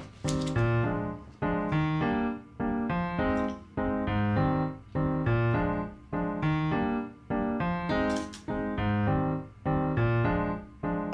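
Background piano music: a steady, evenly paced melody of struck notes and chords.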